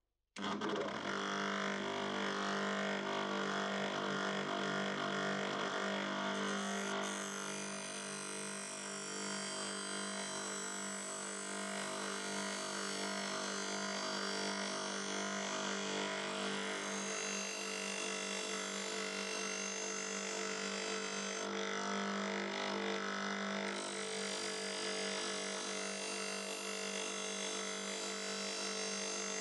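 Bench grinder with a homemade MDF wheel running steadily, with a constant motor hum, while a billhook's edge is held against the spinning wheel to sharpen it. A hiss from the blade on the wheel rides over the hum. The sound starts abruptly about half a second in.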